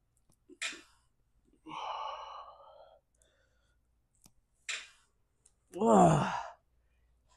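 A man breathing out hard in short puffs while straining through a cable pulldown rep, then a loud groan that falls in pitch about six seconds in.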